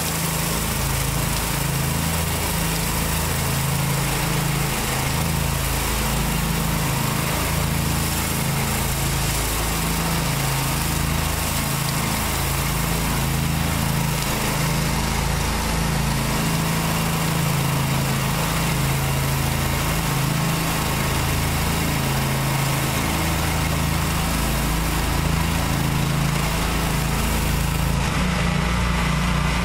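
Engine of a trailer-mounted pressure washer running steadily under load, mixed with the even hiss of a rotary surface cleaner's spinning water jets striking concrete.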